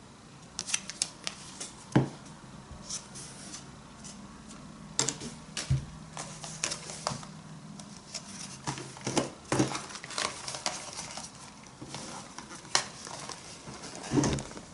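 Objects and packaging being handled: irregular light clicks, knocks and rustles, with a sharper knock about two seconds in and another near the end.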